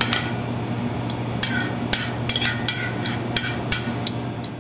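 Kitchen utensils clinking and knocking on dishes: about a dozen sharp, irregular clicks, some briefly ringing, over a steady low hum.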